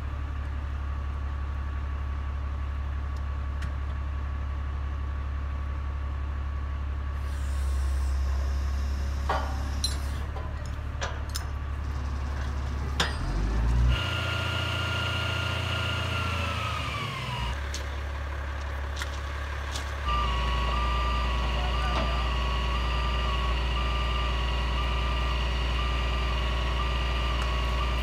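A crane truck's engine running steadily, with a few metal clicks and clanks around the middle. A high whine comes on partway, falls in pitch and stops, then returns steadily and a little louder with a slight warble.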